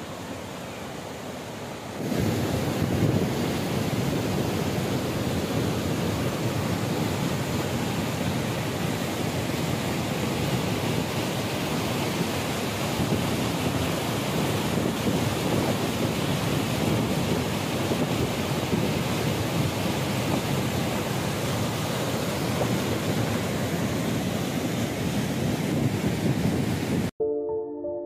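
Steady rush of a cascading mountain stream, which becomes the louder, steady rush of a waterfall from about two seconds in. Music with held tones cuts in near the end.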